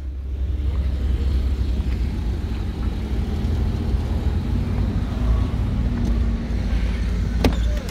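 Steady low rumble of motor-vehicle noise, with a single sharp click about seven and a half seconds in.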